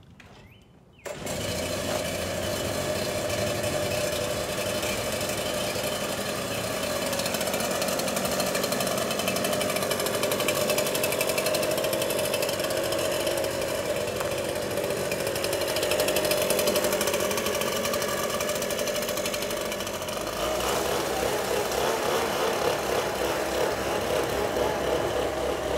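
Backpack leaf blower's engine running steadily at high throttle, blowing out a trailer floor; it starts abruptly about a second in, and its tone wavers more near the end.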